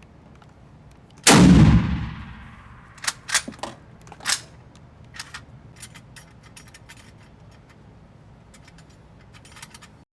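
A single loud rifle shot that rings out and dies away over about a second, followed a couple of seconds later by a few sharp metallic clicks and fainter ticks.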